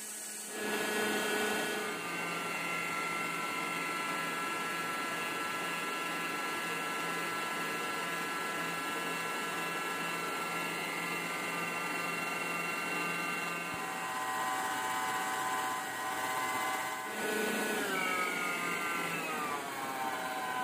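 Electric stand mixer running, its motor giving a steady whine as the flat beater works the batter in a steel bowl. Near the end the whine drops in pitch as the mixer is turned down to its lowest speed.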